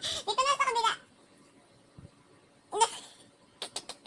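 High-pitched laughing for about the first second, with a wavering pitch. A short laugh or vocal burst follows about three seconds in, then a few quick light clicks near the end.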